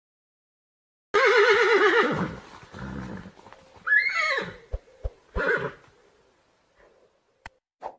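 A horse whinnying: a loud, quavering call starts about a second in and trails off, then a second call slides down in pitch about four seconds in. A few short low knocks follow.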